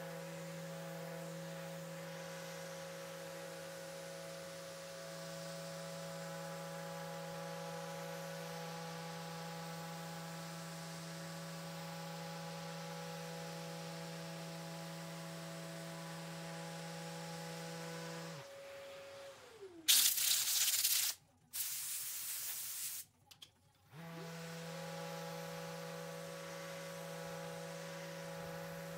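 Festool ETS EC brushless random orbital sander with a foam pad running steadily on an epoxy tabletop, a hum with several steady tones. About two-thirds of the way in it winds down and stops, two loud hissing bursts follow, and then the sander spins back up and runs on.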